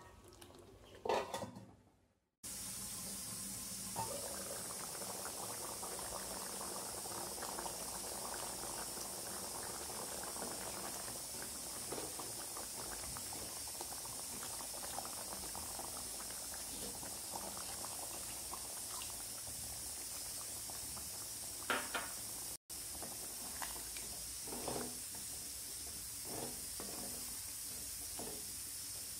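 Green masala chicken curry bubbling in a nonstick kadai, a steady hiss of simmering gravy. A wooden spatula stirs and knocks against the pan a few times near the start and again in the last several seconds.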